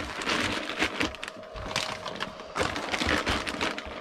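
Kit packaging and parts being handled and packed away by hand: a dense, irregular run of small crackles and clicks, louder around two and a half to three seconds in.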